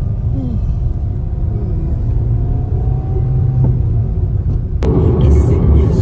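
Car driving along a road, heard from inside the cabin: a steady low rumble of tyres and engine, with a brief steady hum in the middle. Near the end the sound jumps abruptly to louder, rougher road and wind noise with a few scattered knocks.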